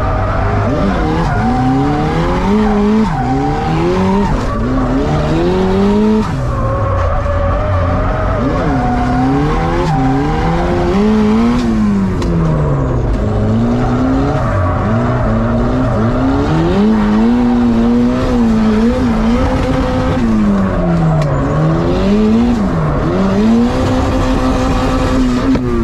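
Mazda Miata drift car heard from inside the cabin: the engine revs up and down over and over, holding high revs through long slides, with tyres squealing and skidding underneath.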